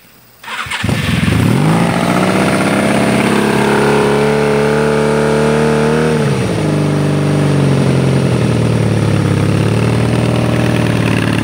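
1994 Honda Magna 750's V4 engine, fed by a single Volkswagen 34PICT-3 carburettor on a home-made four-into-one intake manifold, cranking and catching on choke about half a second in, then running at a fast idle. About six seconds in the idle drops as the carburettor is adjusted by hand, and it settles to a slower steady idle.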